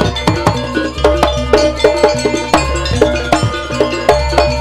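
Live Javanese jaranan gamelan music: drums and struck metal gong-chimes in a quick, steady rhythm, over a deep low tone that shifts about every second and a half.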